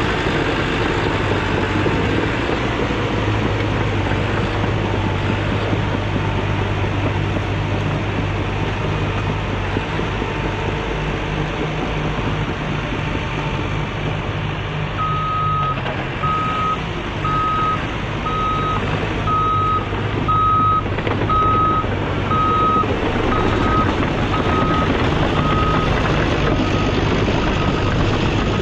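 Cat D5 crawler dozer's diesel engine running. About halfway through, its back-up alarm starts beeping steadily, about three beeps every two seconds, and grows fainter near the end.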